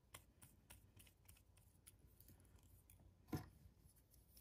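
Faint clicks and taps of a clear plastic fountain pen's barrel, cap and parts being handled and fitted back together, with one louder plastic click about three and a half seconds in.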